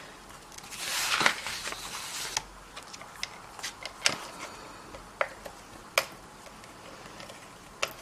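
Fast Fuse adhesive applicator drawn across card stock, laying a strip of adhesive: a rasping stroke lasting about a second and a half, then a few sharp clicks from the applicator and card being handled.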